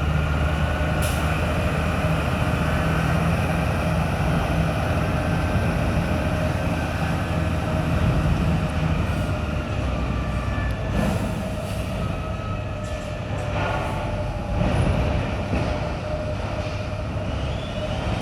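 Wheel loader's heavy diesel engine running under load, a steady low drone that eases off about eight seconds in, with a few sharp metallic knocks and clanks.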